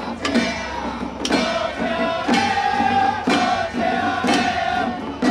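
Temple ritual music: a held melody that steps from note to note about once a second, over a percussion strike roughly once a second.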